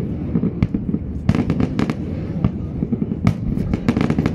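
Aerial fireworks bursting: quick runs of sharp cracks and bangs, one cluster about a second in and another near the end, over a steady low rumble.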